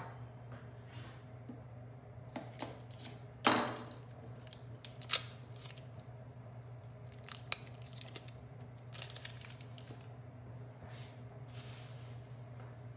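Butter being unwrapped and cut: the wrapper crinkling and tearing, with scattered sharp clicks and knocks, the loudest about three and a half seconds in, over a low steady hum.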